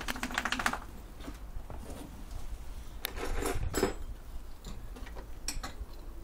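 Pet bowls clattering on concrete as the dog knocks them about: a quick run of rattling at the start and another about three seconds in, with odd single knocks in between.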